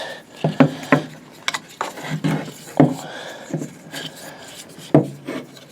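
Folding bow saw being tensioned: irregular clicks, knocks and rubbing as its windlass is given a few spins.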